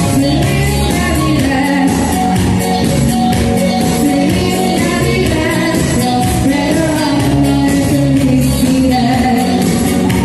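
Singing into microphones over pop-style music accompaniment, the melody carried by a female voice.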